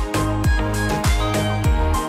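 Background music with a steady kick-drum beat, a little under two beats a second, under sustained chords.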